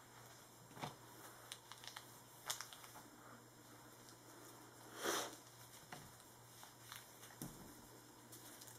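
Faint handling sounds as a cloth rag is picked up and wiped across a tabletop: a few light scattered knocks and rustles, with one louder brief swish about five seconds in.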